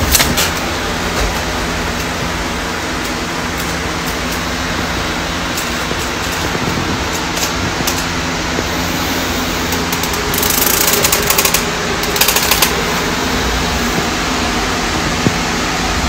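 Electric fan running steadily: an even rushing noise under a low motor hum. Short bursts of clicking or rattling come about ten seconds in and again about twelve seconds in.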